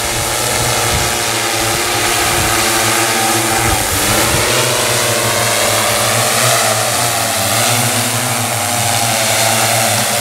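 Multirotor LiDAR survey drone's propellers giving a steady, loud hum of several tones. The pitch shifts a few times, around four seconds in and again near seven, as the rotor speeds change while it manoeuvres.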